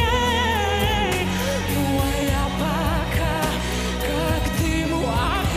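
Young male singer performing a pop song live into a microphone, holding notes with a wide vibrato over band backing with bass and a drum beat.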